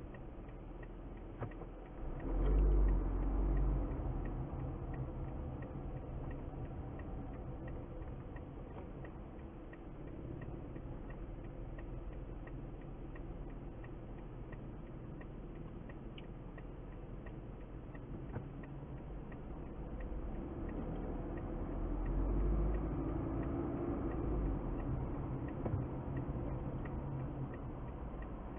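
A car driving along: steady engine hum and road rumble that swells louder twice, about two seconds in and again a little past twenty seconds in, with occasional faint ticks.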